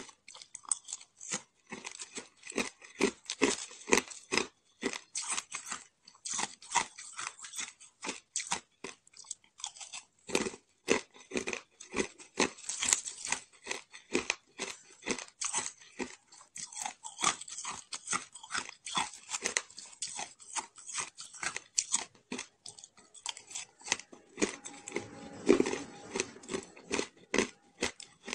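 Shaved ice being chewed close up: a quick, steady run of crisp crunches, several a second.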